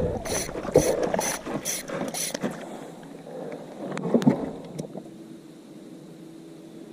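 A rhythmic run of about six short scraping strokes, roughly two a second, then a few sharp clicks and a faint steady hum.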